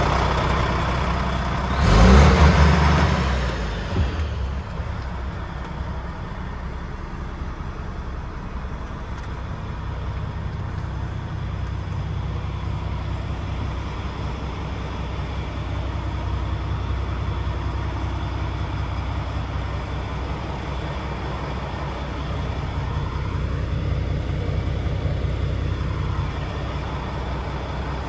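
DAF XF105's Paccar MX 12.9-litre straight-six diesel idling steadily, heard mostly from inside the cab. About two seconds in there is a loud rustle and knock that lasts about two seconds.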